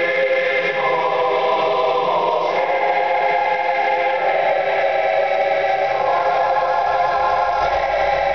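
Choir-like music with long-held chords from the projection show's sound system, the chord shifting about every second and a half. A deep rumble comes in near the end.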